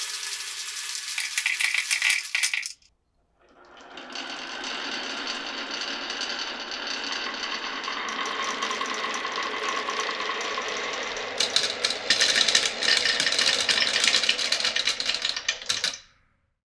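Glass marbles rolling and clattering along a wooden marble run. The sound stops abruptly about three seconds in, then a steady rolling sound builds, turning to rapid dense clicking in the last few seconds before cutting off suddenly.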